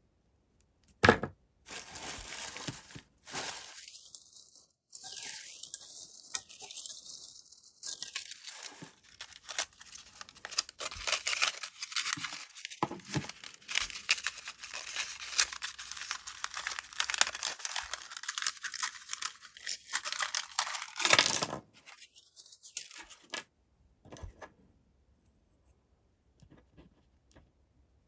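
Blind-box packaging for LEGO minifigures being torn open and crinkled by hand, a dense crackling that starts sharply about a second in and stops near the end, followed by a few faint clicks.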